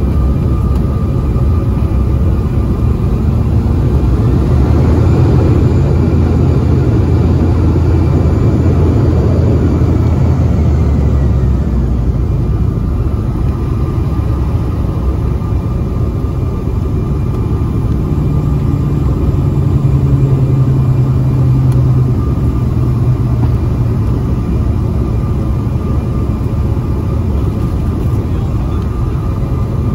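Inside the cabin of a Bombardier CRJ-900 rolling on the runway after landing: steady noise of its twin rear-mounted GE CF34 turbofans with a constant whine, over a low rumble from the wheels and airframe that is heavier for several seconds early on.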